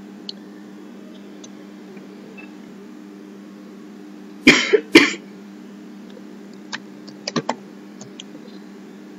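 A man coughs twice, about half a second apart, over a steady low hum. A few faint, sharp computer-mouse clicks follow a couple of seconds later.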